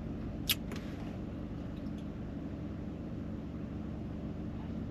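Car idling, a steady low hum heard inside the cabin, with one sharp click about half a second in.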